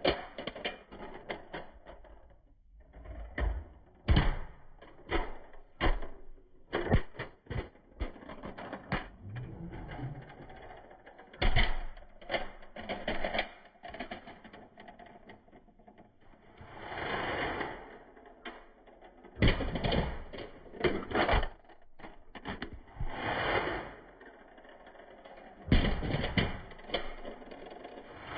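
Toy cars clattering as they jump off a ramp, land and tumble: a string of sharp knocks and rattles, with now and then a longer rolling rattle lasting about a second.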